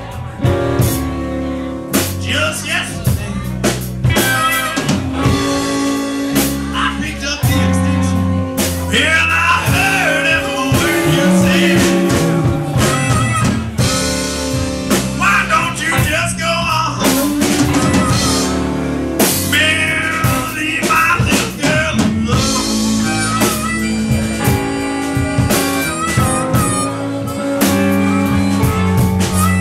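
Live electric blues band playing: electric guitars and drum kit with a blues harmonica, cupped against a handheld microphone, playing wavering lines over the band.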